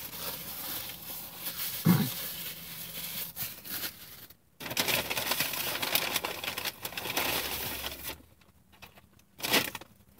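Paper fast-food bag and wrappers rustling and crinkling as they are handled, in two stretches broken by short pauses about halfway and near the end. A short low sound comes about two seconds in.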